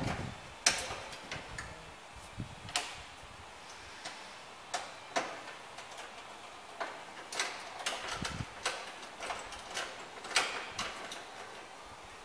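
Light, irregular clicks and taps of sheet-metal repair panels being handled and fitted up against the car's floor and castle rail.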